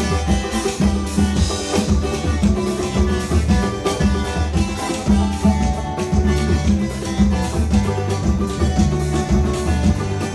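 Instrumental music led by a plucked viola, with bass and a steady drum beat.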